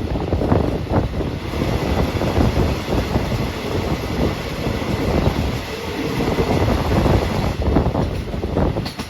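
Passenger train running along the track: a steady, loud rumble of wheels on the rails with rushing air noise.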